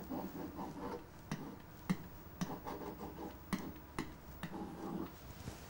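Mimio stylus pen writing on an interactive whiteboard: irregular light clicks of the pen tip against the board surface, with faint scraping strokes between them.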